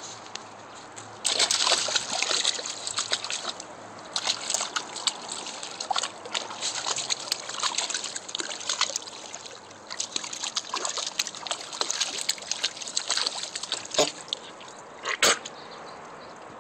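Shallow water in a plastic kiddie pool splashing and sloshing in irregular bursts as a small dog wades and paws through it, with one louder splash near the end.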